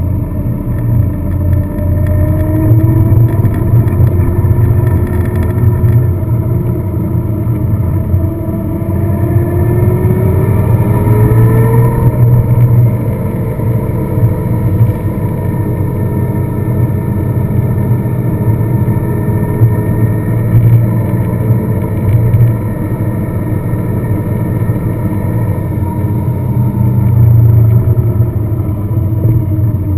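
Car engine running under way with road rumble, its pitch rising for a few seconds near the middle and then dropping back as it changes speed.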